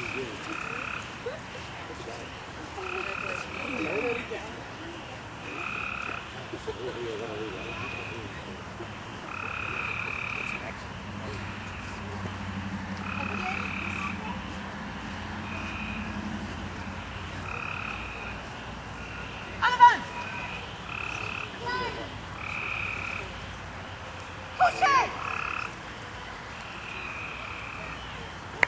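Frogs calling: short croaks repeated irregularly, one every second or two, with a louder, quick wavering call twice in the second half.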